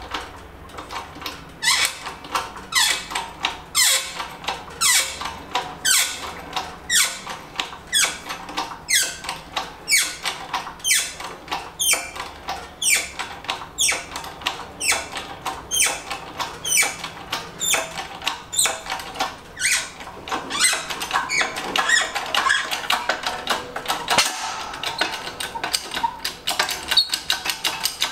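Hydraulic bottle-jack shop press being pumped by hand while it presses a wheel bearing out of an IRS rear knuckle, squeaking on each stroke. The squeaks come about two a second, each falling in pitch, and run closer together in the last few seconds.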